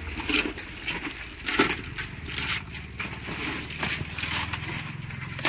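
Short, irregular clicks, scrapes and rustles of live mud crabs being handled, their shells and bound claws knocking together. A low, steady engine hum runs underneath.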